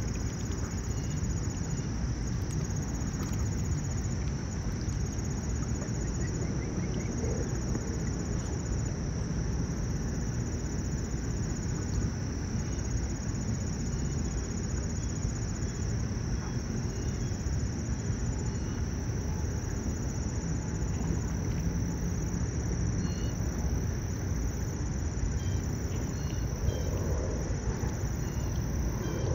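Steady lakeside ambience: a continuous low rumble under a high, unbroken insect chorus.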